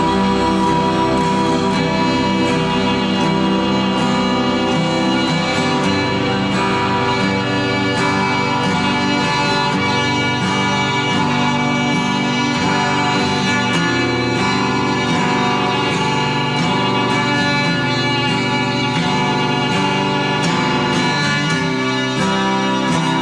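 Background music: a steady instrumental track with sustained notes.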